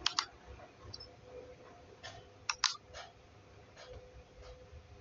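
Computer mouse clicking: a quick pair of clicks at the start and another pair about two and a half seconds in, with a few fainter clicks between. A faint steady hum runs underneath.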